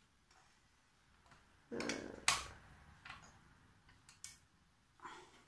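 Hand-cranked pasta machine being handled: a few separate sharp clicks and a short knock, the loudest about two seconds in, as its thickness dial is turned.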